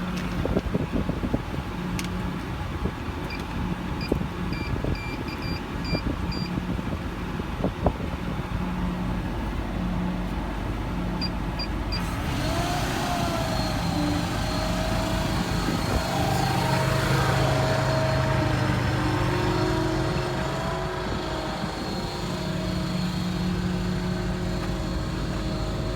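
Ford F-550's diesel engine idling with a few clicks and short electronic beeps. About halfway through, the truck-mounted Auto Crane air compressor starts up: a louder rushing sound with a wavering whine over the engine.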